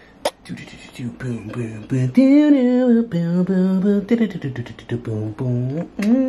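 A man singing a wordless melody of long held notes that waver and slide up and down in pitch. A sharp click comes just after the start.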